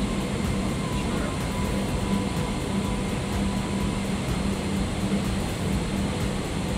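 Steady airliner cabin noise inside a Boeing 777-200LR: an even rush of air with a constant low hum.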